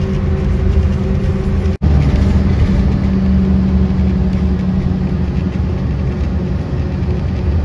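Steady low engine rumble with a hum, broken off for an instant about two seconds in and then going on.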